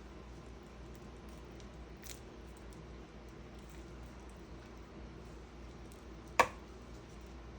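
Quiet wet squishing and small ticks of pawpaw fruit being worked open and scooped out with a spoon to remove the seeds, with one sharp clack about six seconds in.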